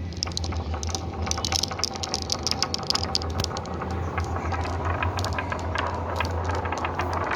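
Marbles rolling down a marble run track: a steady low rumble with dense, rapid clicking and rattling as the marbles knock against the track and each other.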